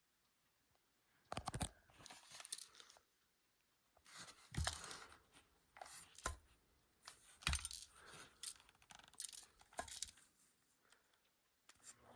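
Irregular handling noises: short knocks, clicks and scraping rustles coming in bursts with quiet gaps between them.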